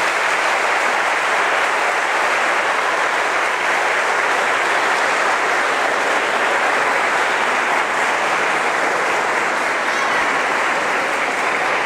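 Audience giving a long, steady round of applause.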